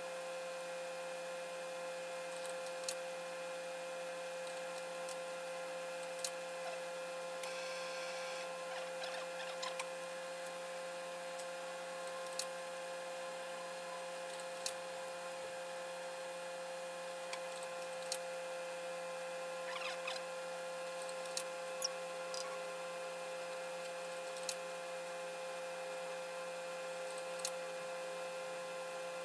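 Industrial sewing machine's electric motor humming steadily while the machine stands without stitching, with sharp clicks every few seconds as the fabric and machine are handled.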